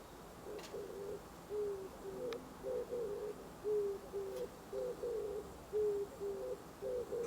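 Oriental turtle dove singing: low, hoarse coos in a short phrase of several notes, repeated over and over.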